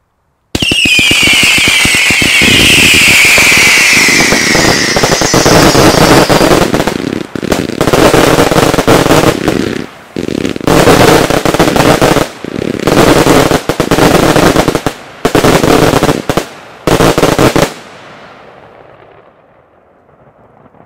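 Fireworks battery firing a rapid barrage. Several falling whistles over the first six seconds ride on dense crackling shots, then fast volleys of bangs come in bursts with short gaps between them. The barrage stops abruptly a few seconds before the end, leaving a fading echo.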